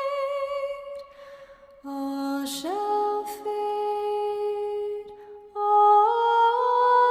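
Soft, slow background music: a melody of long held notes with two short pauses, stepping up in pitch near the end.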